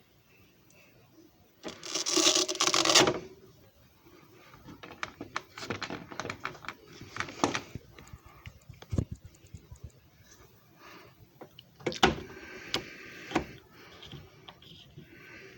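Hand-handling noise: a loud rustling scrape about two seconds in, then a run of irregular clicks and light knocks, like parts being opened, set down and snapped into place.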